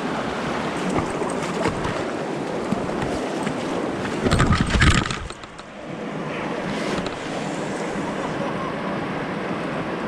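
Mountain stream rushing over rocks, a steady wash of water noise, with a brief louder rumble lasting under a second about four seconds in.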